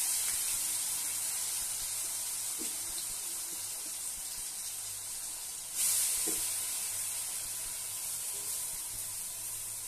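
Ground onion-and-spice paste sizzling as it hits hot oil in a kadai, a steady hiss that slowly fades. About six seconds in it turns suddenly louder as more paste is added, then fades again.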